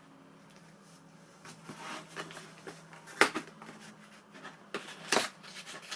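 Cardboard pistol box being handled: scattered rustles and light taps, with two sharper knocks about three and five seconds in.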